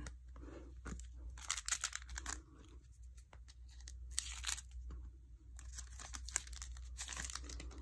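Foil wrapper of a football trading-card pack being torn open and crinkled in several short bursts of tearing and rustling.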